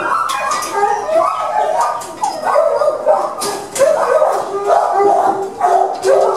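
Many shelter dogs barking, yipping and whining at once, a loud, continuous chorus of overlapping calls from dogs excited by a walker at the kennels.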